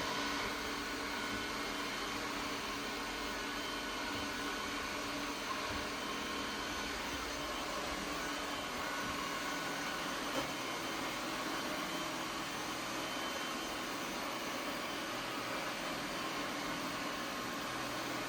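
ECOVACS Deebot N8 Pro+ robot vacuum running steadily while cleaning: an even whir of its suction fan and brushes with a faint whine in it. A small knock about ten seconds in.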